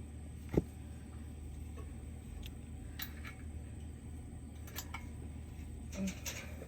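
A single sharp knock about half a second in, then a few faint clicks and taps: the metal parts of a three-point quick hitch and tractor lower lift arm being handled and lined up for the pin. A low steady hum runs underneath.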